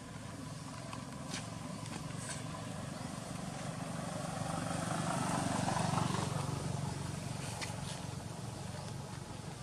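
A motor vehicle passing on the road, its engine hum growing louder to a peak about six seconds in and then fading away, with a few faint clicks.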